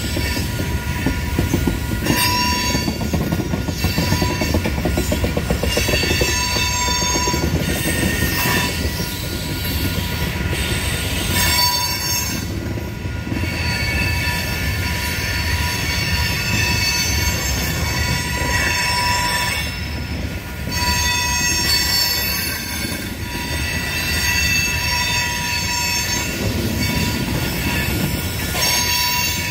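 Freight cars of a mixed freight train, mostly tank cars and covered hoppers, rolling past: a steady heavy rumble of steel wheels on the rails, with high-pitched wheel squeal.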